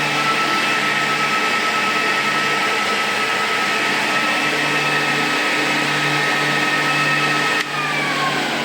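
Small high-speed electric motor driven by a freshly repaired Siemens Micro control board, running with a steady whine on a test run. Near the end the sound drops suddenly and its pitch falls as the motor slows down.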